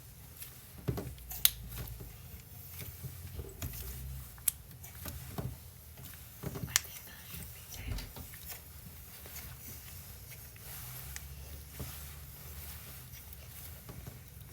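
Banana pudding scented slime being handled by hand, giving irregular soft squishes and sharp clicks and pops, the loudest about a second and a half in, four and a half seconds in and near the middle.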